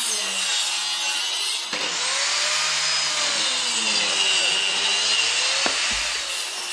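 Mafell KSS 300 plunge circular saw, with its 900-watt motor, running and cutting a compound mitre through a softwood board along its guide track, the whine wavering in pitch as the blade takes the wood. A sharp click near the end.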